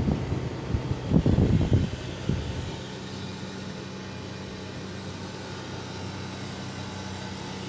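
Irregular low rumbling gusts, like wind buffeting the microphone, for about the first two and a half seconds. Then a steady low machine hum with a few held tones.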